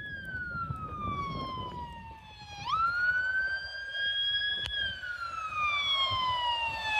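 Emergency vehicle siren in a slow wail. Its pitch slides down, sweeps quickly back up about two and a half seconds in, climbs a little further, then slides down again.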